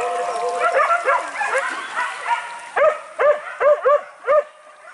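A pack of hunting dogs barking and yelping, several voices overlapping at first, then a run of about five loud, sharp barks near the end.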